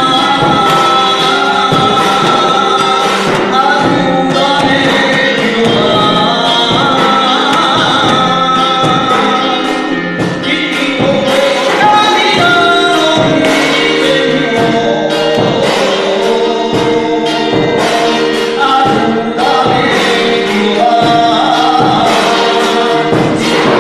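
Live music: an electronic keyboard playing accompaniment with a steady beat while a man sings into a handheld microphone.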